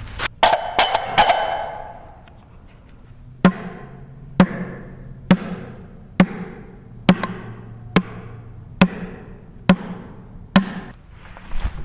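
A slow, even series of eight sharp hollow knocks, a little under a second apart, each ringing briefly. Before them come a few quick clicks and a short ringing burst.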